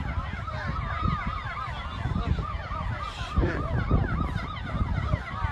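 Several emergency-vehicle sirens wailing at once: quick, repeating rising-and-falling sweeps overlapping at different pitches, over a steady low rumble.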